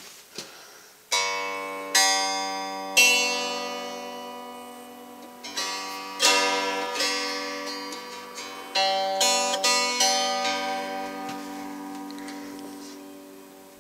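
Guitar chords strummed with a pick, about ten strokes with the strings left ringing between them and dying away near the end.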